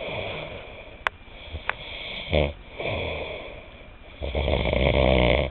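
A man snoring in his sleep: several low-pitched snoring breaths, the longest and loudest near the end. There is a short snort about two and a half seconds in.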